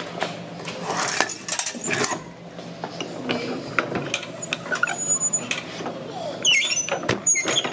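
Hand-cranked souvenir penny-press machine being turned: its gears and rollers clicking and clanking irregularly as a coin is pressed and engraved.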